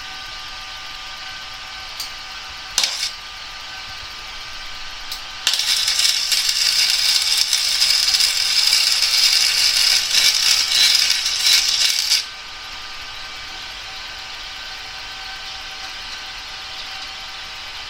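Arc welding on steel: a few short clicks, then a loud, even crackle for about seven seconds as a weld bead is laid, cutting off suddenly. A steady hum from the switched-on welder runs underneath.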